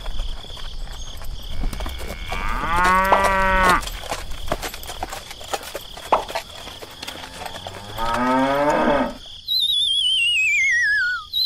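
A cow mooing twice, a few seconds apart. Near the end comes a wavering whistle that slides steadily down in pitch, a cartoon sound effect.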